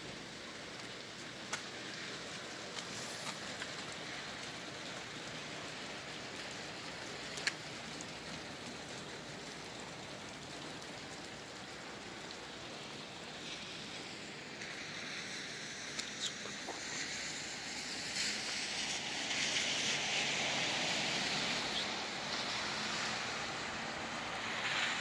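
Steady hiss of wet snow and sleet falling, with a few drips ticking now and then. In the second half a louder hiss swells and holds for several seconds: a vehicle's tyres on the wet road.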